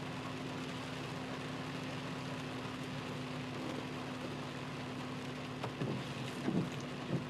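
Steady hum of a car's engine running, heard from inside the cabin, with a hiss of rain on the windshield.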